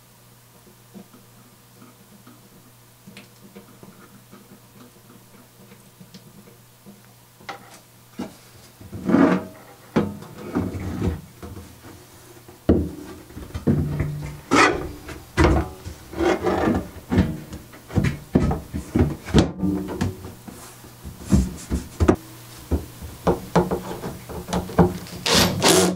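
An all-metal plate amplifier module is handled and fitted into the back opening of a subwoofer cabinet. After a quiet stretch of faint handling ticks, irregular knocks, clunks and scrapes of the metal module against the cabinet begin about nine seconds in. Near the end the mounting screws are driven in by hand.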